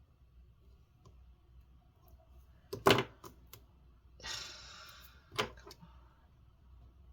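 Hands working on an opened laptop: a sharp clack about three seconds in, a couple of light clicks, a scraping hiss lasting about a second, then another knock.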